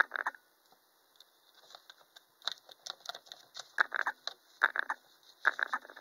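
Irregular bursts of clattering and rustling from small objects being handled, with a sharp one right at the start and four clusters later on: a brush set down and a plastic storage box rummaged for a makeup sponge.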